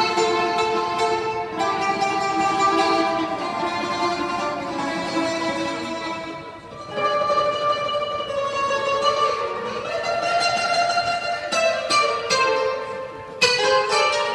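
Two bouzoukis playing a melody together in long held notes. The playing thins out briefly about six and a half seconds in and again near the end, then comes back in strongly.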